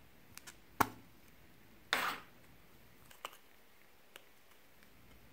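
Plastic cow-shaped slime container being handled and pulled open: a few small clicks, a sharp snap about a second in, a brief rasping sound near two seconds, then a couple of lighter clicks.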